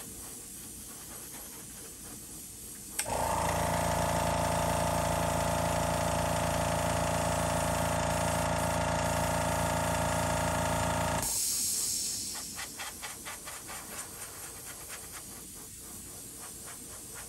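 An airbrush air compressor switches on about three seconds in and runs with a steady motor hum for about eight seconds, then shuts off with a short hiss of released air. Faint clicks follow as the airbrush is handled.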